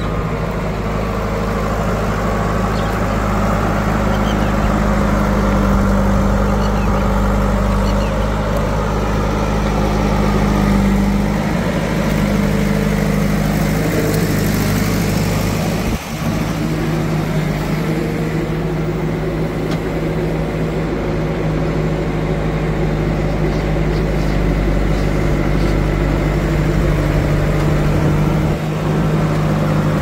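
Diesel engine of heavy farm machinery running steadily. About halfway through it briefly dips, and its note then shifts slightly.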